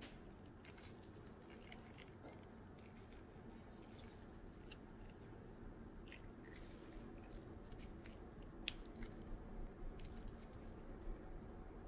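Faint handling noise: gloved fingers rubbing and scattered small clicks of plastic puzzle parts and a metal ball chain being picked up and set down, over a low steady room hum.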